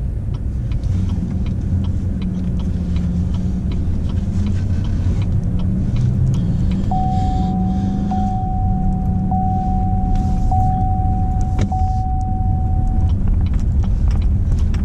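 Pickup truck engine running, heard from inside the cab as a steady low rumble. About seven seconds in, a steady electronic warning chime starts, broken by short gaps about once a second, and stops after about six seconds, with a single click near its end.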